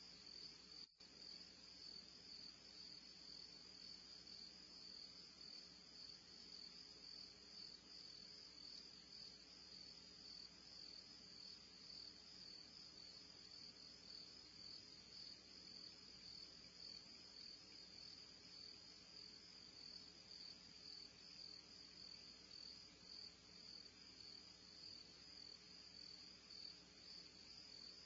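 Faint, steady high-pitched insect chorus that keeps going without a break, with a brief dropout about a second in.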